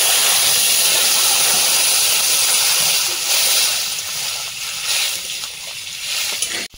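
Hot water poured into a hot wok of oil-fried, spice-coated potatoes, hissing loudly as it hits the pan. The hiss eases after about three seconds as the curry settles into bubbling.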